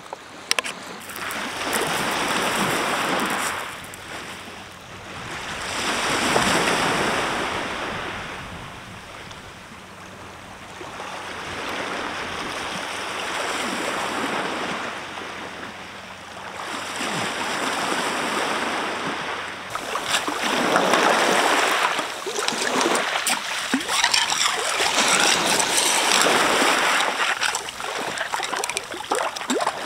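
Sea waves washing onto the shore, each surge swelling and falling away every few seconds, with a stronger run of waves in the second half.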